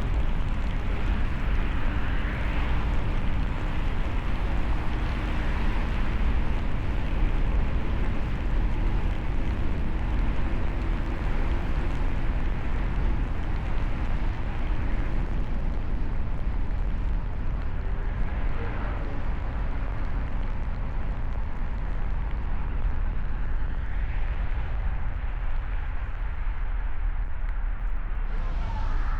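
Steady driving noise of a car on a snowy road: a constant low tyre and road rumble with a hiss of wind and slush above it.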